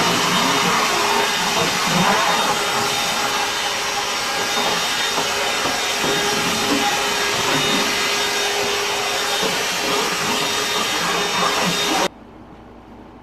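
Cordless battery vacuum, running on the same battery pack as power tools, running steadily with a faint steady hum over a loud airflow rush, then switched off suddenly near the end.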